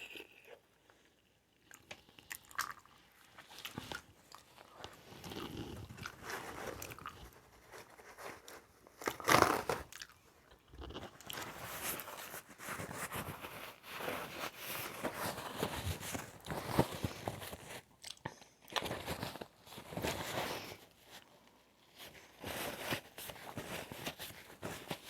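Close-miked eating of seafood boil: irregular chewing and biting sounds, with a louder bite about nine seconds in.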